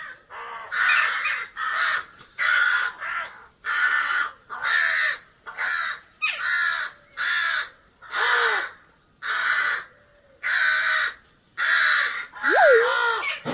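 Crow cawing over and over: more than a dozen harsh caws, evenly spaced.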